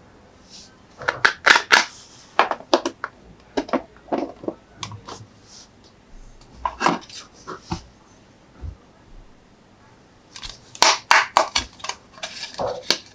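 Close-up handling of diecast toy monster trucks: clusters of sharp clicks, taps and scratches, with quieter pauses between them.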